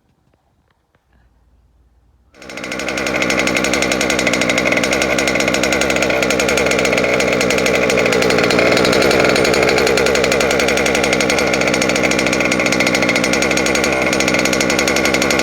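Small two-stroke gas engine of a Losi DBXL 2.0 RC buggy catching about two seconds in and then running at a steady speed.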